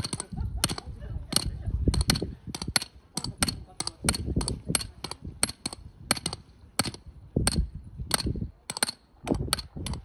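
A hammer drives metal tent stakes into the ground, tightening the guy lines of a star tent. It strikes in an irregular run of sharp, ringing metallic clinks, about two to three a second.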